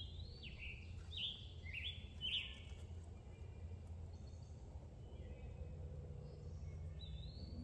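Songbird singing: a run of four quick sweeping notes in the first two and a half seconds, then fainter calls, one more near the end. Under it runs a steady low outdoor rumble.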